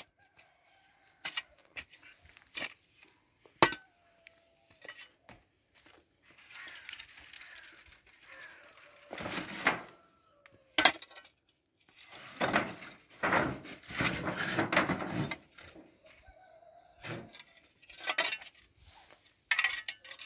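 Irregular knocks and clatter, with stretches of scraping and rustling, as a wooden-handled shovel and a rough wooden slat gate are handled.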